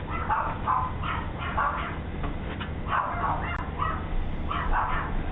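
A dog barking repeatedly, heard through a Ring doorbell camera's microphone.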